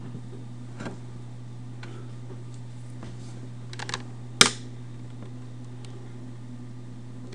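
A few light clicks from a computer mouse and desk over a steady low hum, with one sharp, louder click about four and a half seconds in.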